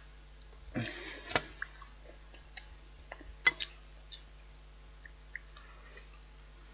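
Eating sounds from a bowl of spotted dick and custard: a short wet scrape about a second in, then scattered sharp clicks of a utensil against the bowl, the loudest about three and a half seconds in, with soft squishing of the food.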